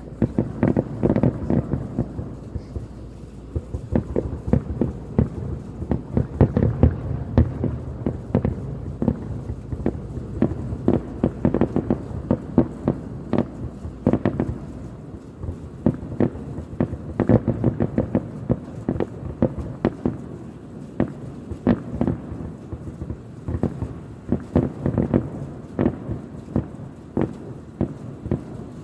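Distant fireworks going off: a dense run of bangs and pops, several a second, over a continuous low rumble.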